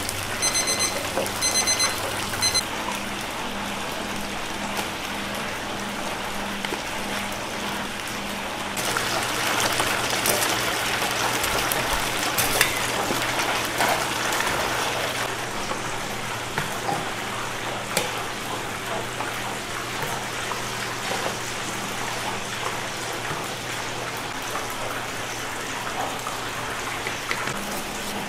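Chicken karaage deep-frying in a commercial fryer, the oil sizzling steadily and growing louder for a few seconds in the middle. A high electronic beeping repeats in quick pulses at the start and stops a couple of seconds in.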